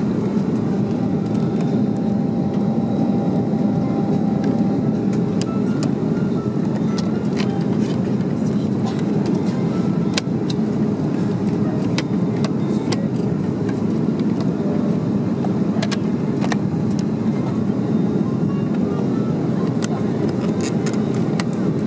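Steady low airliner cabin noise inside an Airbus A330-300, with scattered light clicks and knocks from a hand working the plastic seatback tray table and its latch.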